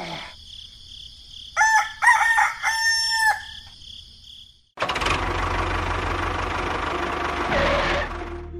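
A rooster crowing in a pitched, broken call. After a brief silence a steady, noisy mechanical running sound with a low hum starts.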